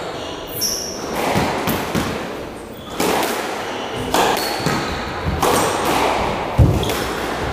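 A squash rally: the ball is struck by racquets and hits the walls in a series of sharp knocks, with the players' footsteps thudding on the wooden court floor. A short high shoe squeak comes about half a second in, and the loudest thud comes near the end.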